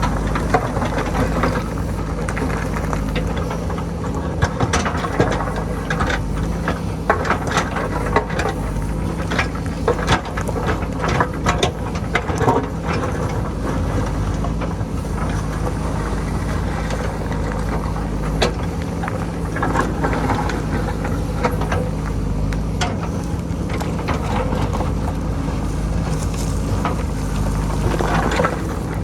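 JCB backhoe loader's diesel engine running steadily under load, with many sharp knocks and clatters of rock as the bucket works the hillside and stones fall. The clatter is thickest in the first half and comes in scattered bursts later.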